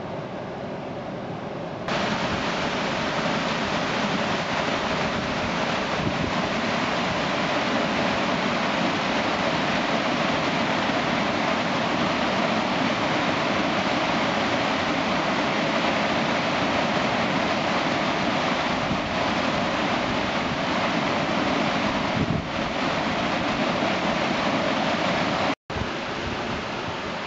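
Whitewater rapids rushing over a concrete drop: a steady, loud rush of churning water that jumps louder about two seconds in and cuts out for an instant near the end.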